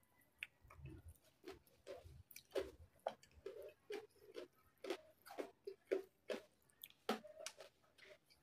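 Mouth chewing crispy pata (deep-fried pork knuckle), with irregular crunches and wet mouth sounds two or three times a second.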